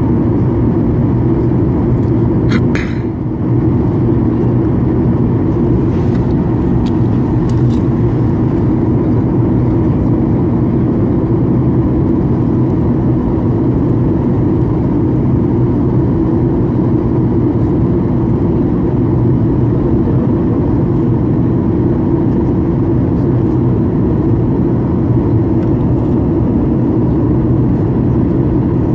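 Steady cabin noise of a Boeing 737 descending through cloud: engine and airflow rumble heard from inside the cabin. A brief sharp sound comes about three seconds in, and a couple of faint clicks follow a few seconds later.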